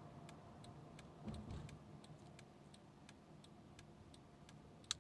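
Even ticking about three times a second, the rhythm of a turn-signal indicator clicking in a 2012 Honda Odyssey's cabin, over a faint low hum. A brief low thump comes about a second in, and a sharper click right at the end.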